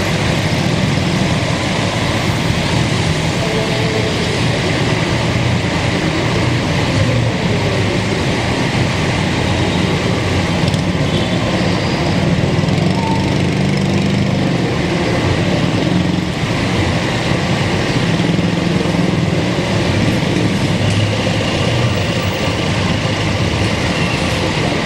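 Steady traffic on a busy city road: the engines of passing jeepneys, cars and motor scooters running in a constant low rumble.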